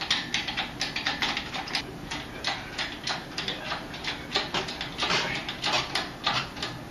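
Hand-pumped hydraulic engine hoist lifting an engine on chains: rapid, uneven clicking and clanking from the pump handle and ram, several strokes a second.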